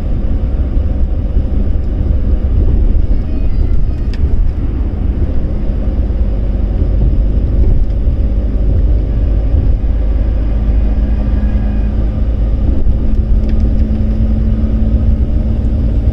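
Steady road and engine noise of a moving car, heard from inside the cabin: a continuous low rumble with no sudden events.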